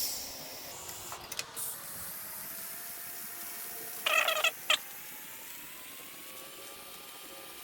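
TIG welding arc on copper: a steady hiss that starts with a short crackle, with a faint tone slowly rising in pitch. About four seconds in, a short, loud, wavering high call cuts across it.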